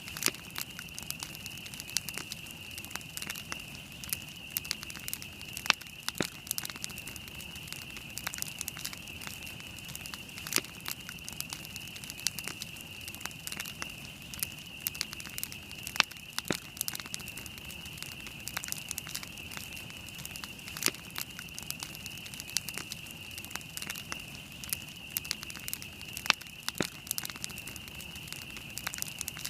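Wood campfire crackling, with frequent irregular sharp snaps and pops over a steady high-pitched hiss.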